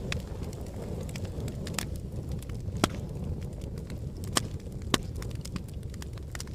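Wood fire burning in a fireplace: a steady low rumble of flames with irregular crackles and a few sharp pops, the loudest about three and five seconds in.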